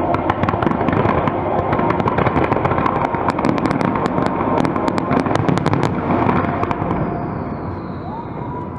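Fireworks display: dense, rapid crackling of many bursting shells over a rumble of explosions, thinning out and getting quieter over the last few seconds.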